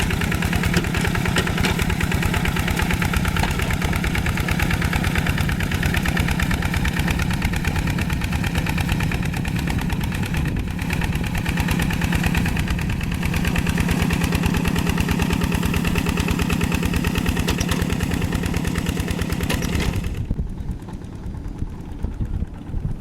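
Diesel tractor engine running steadily with fast, even firing pulses. About twenty seconds in, the sound drops suddenly to a quieter, duller running.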